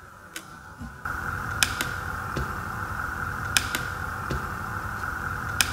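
Rocker switch on a Leister Hotwind System hot-air blower clicking several times as it is pressed to step through the setup menu, some clicks in close pairs. Under the clicks a steady rushing blower noise with a faint tone gets louder about a second in.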